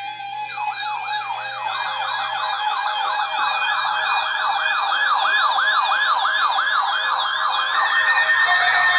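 Electronic siren yelping in rapid up-and-down sweeps, about four a second, growing louder, with a steady high tone joining near the end.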